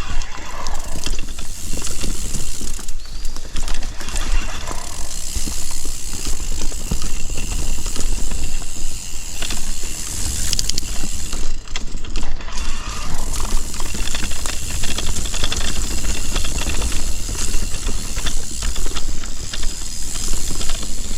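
Mountain bike being ridden along a dirt singletrack: wind rumbling over the action-camera microphone, with the tyres on the trail and the bike rattling over bumps in many short knocks.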